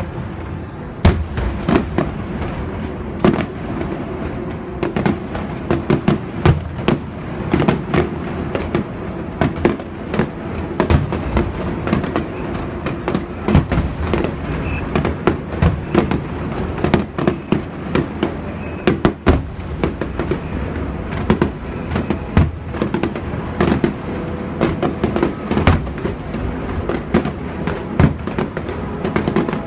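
Fireworks going off in a dense, continuous barrage: sharp bangs several times a second over steady crackling.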